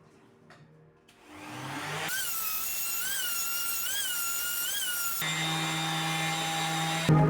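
A power tool fitted with a 125 mm cloth-backed abrasive disc starts about a second in, spins up, then runs steadily with a whine whose pitch wavers. The sound changes about five seconds in and keeps running.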